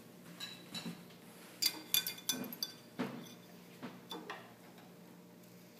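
A few light clinks and taps of a metal fork against a ceramic plate, some with a brief ring, in small clusters from about one and a half to four and a half seconds in.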